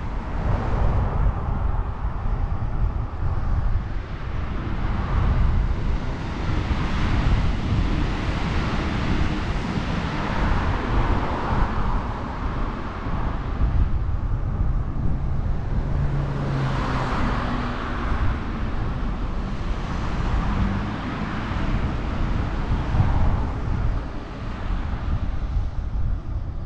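Wind rushing over an action-camera microphone while riding a bicycle, with road traffic swelling and fading several times as vehicles pass.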